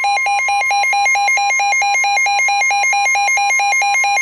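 Emergency Alert System attention signal: two tones of about 853 and 960 Hz sounding together as one loud, continuous, harsh alarm. It heralds an emergency broadcast, here a severe thunderstorm warning.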